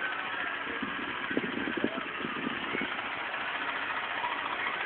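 Box fan running with a steady whooshing hum, with a couple of short knocks and rustles about a second and a half in.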